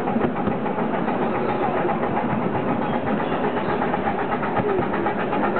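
Miniature ride-on railway train running along its track, heard from an open passenger car: a steady mechanical running noise with a fast, even rhythm.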